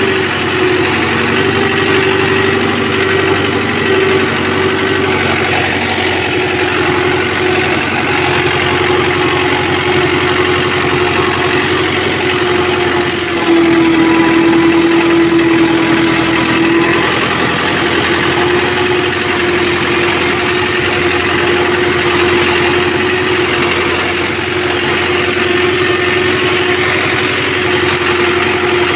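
Tractor diesel engine running steadily while pulling a seed drill across tilled soil, heard from the driver's seat. About halfway through it grows louder and drops a little in pitch for a few seconds, as if under heavier load, then settles back.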